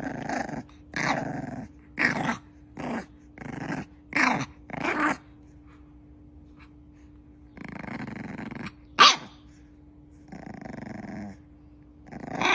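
A dog growling in a quick run of short bursts, then, after a pause, in a few longer rough growls with one sharp, loud yelp-like sound among them.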